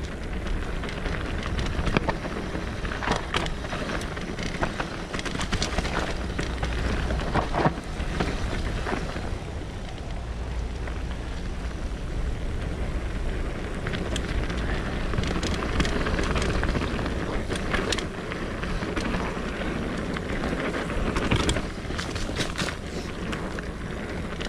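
Mountain bike riding fast down a dirt woodland singletrack: wind rushing over the microphone and tyres rolling over dirt and dry leaves, with frequent sharp clicks and knocks as the bike rattles over bumps.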